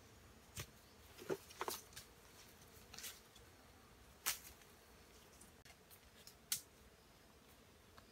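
Bamboo poles and sticks being handled, giving about half a dozen scattered light clicks and knocks.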